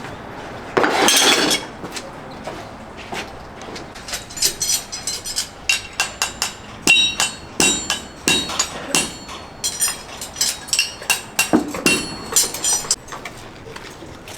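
Farrier's hammer striking metal in a long run of sharp, ringing taps, a couple a second, after a short louder noise about a second in.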